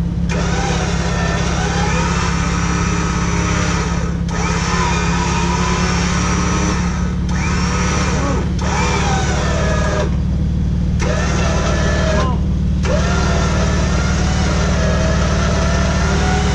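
Jeep Wrangler's engine running at idle, a steady low hum throughout.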